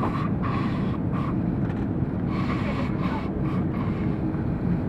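Steady low rumble of cabin noise inside a Qantas Airbus A330 as it taxis after landing, from the engines at idle and the wheels rolling.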